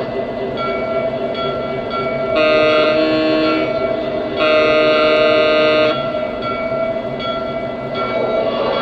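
Two blasts of a multi-chime diesel locomotive air horn, about a second and a second and a half long, from the Legacy sound system of a Lionel O-scale EMD GP7, played through the model's speaker over the steady running of its diesel engine sound.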